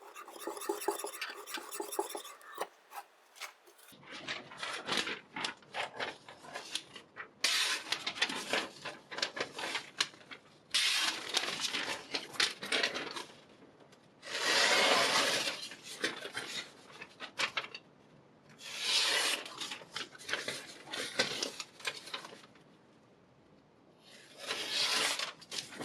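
A chef knife's blade rasping in repeated strokes: at first a quick, even run of strokes, then, after an abrupt change about four seconds in, about five separate rough strokes of a second or two each with pauses between.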